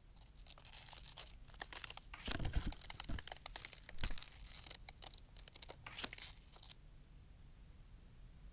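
Paper crinkling and rustling with sharp crackles and a few soft thumps, stopping about seven seconds in.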